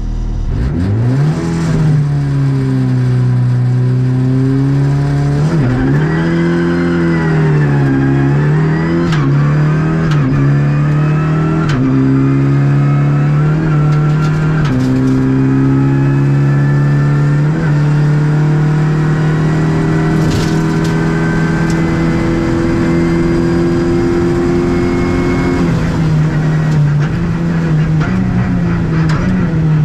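Renault Clio Rally5's turbocharged 1.3-litre four-cylinder, heard from inside the cabin, accelerating hard from a standing stage start and upshifting several times through its sequential gearbox, then holding high revs at speed, with the revs easing slightly near the end.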